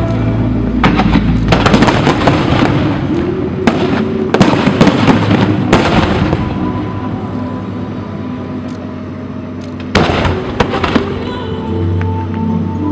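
Aerial fireworks display: rapid bangs and crackling shell bursts in the first half, easing off, then another volley of bursts about ten seconds in. Music plays underneath.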